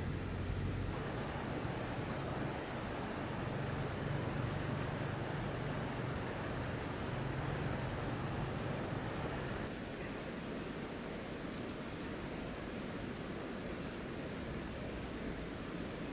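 Insects trilling steadily at one high pitch over a constant outdoor hiss; a low rumble underneath drops away about ten seconds in.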